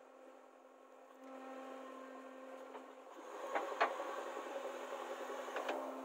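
JCB backhoe loader's diesel engine running under hydraulic load as the boom lifts a full bucket out of a trench. The engine note grows louder about a second in and again about three seconds in. Two pairs of sharp metallic knocks come from the bucket and boom.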